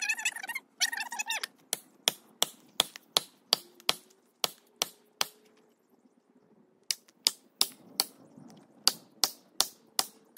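Hammer blows driving plastic felling wedges into the back cut of an oak tree: quick, sharp strikes about three a second, in two runs with a pause of a second and a half between them. Two short high whines come just before the strikes start.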